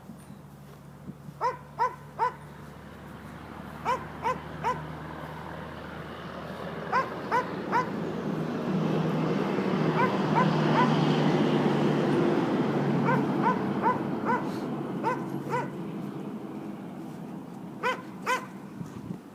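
A small dog yapping in quick sets of three short, high barks, a set every two to three seconds. Underneath, a low rumbling noise swells up to a peak around the middle and then fades away.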